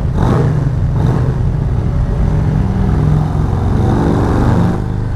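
Harley-Davidson Road Glide V-twin motorcycle engine running under way, heard from on the moving bike. The revs climb from about three seconds in and drop off near the end.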